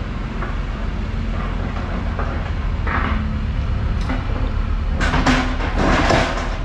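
Steady low rumble of outdoor street background noise, with a short noisy rush about three seconds in and a louder one from about five seconds in.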